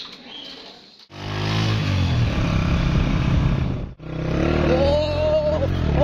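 Motorcycle engine running steadily, starting abruptly about a second in and breaking off briefly at about four seconds, with a wavering higher tone over it near the end.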